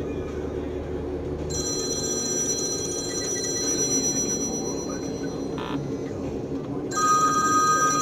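Steady road and tyre noise inside a car at freeway speed. A high electronic warning tone rings twice, each time for about two seconds, and the second is the louder.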